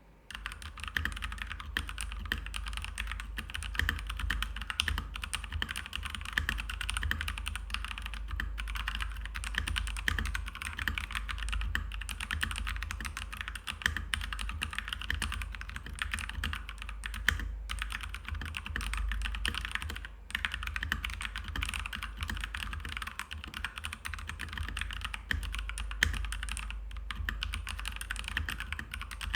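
Continuous fast typing on a Keychron K2 V2 hot-swappable mechanical keyboard with stock, unmodified Gateron Brown tactile switches: a dense clatter of key clicks with a few brief pauses. The typing starts about half a second in.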